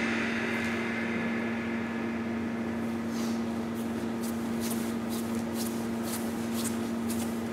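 Steady low background hum of an indoor hall after music stops. From about three seconds in there is a run of faint, short, high scuffs or ticks, several a second.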